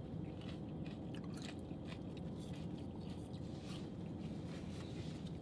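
Quiet chewing and small crunches of people eating fast-food fries and a cheeseburger, over a low steady hum.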